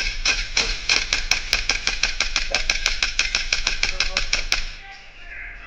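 Airsoft gun firing a rapid string of shots, about six or seven a second, each a sharp crack. The shooting stops about four and a half seconds in.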